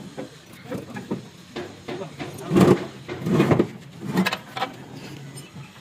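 Irregular heavy metal clunks and scraping from a diesel engine and steel pipes being shifted on a steel truck bed, the loudest knock a little over two and a half seconds in.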